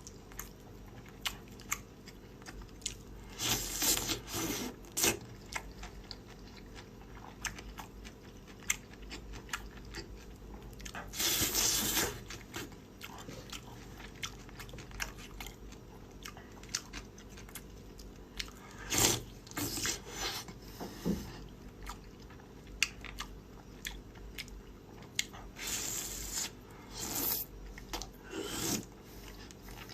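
Close-miked eating: a person chewing and biting food with crunches and many small mouth clicks, with louder bursts now and then.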